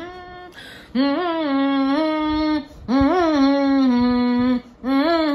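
A woman humming long held notes, three in a row, each about a second and a half, each opening with a short upward slide before it holds steady.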